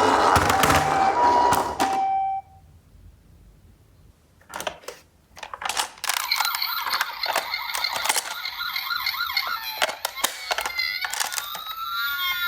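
Toy ambulance's electronic hi-lo siren, two tones alternating in the Japanese "pee-po" pattern, over a loud rolling rattle; it cuts off suddenly about two seconds in. After a pause and a few clicks, another toy ambulance's electronic siren starts, warbling, with a rising-and-falling wail near the end.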